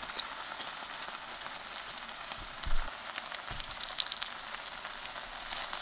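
Boneless chicken thigh and chopped onion frying on low heat in a nonstick pan: a steady sizzle with scattered small crackles. A light thump comes about two and a half seconds in as a block of butter is dropped into the pan.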